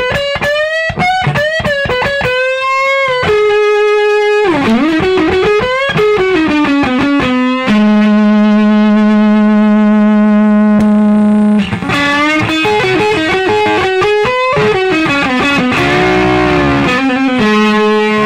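Electric guitar with single-coil pickups played through a 1960s John Hornby Skewes Zonk Machine fuzz pedal with germanium and silicon transistors. Distorted lead phrases with string bends and vibrato, and one note held for nearly four seconds in the middle.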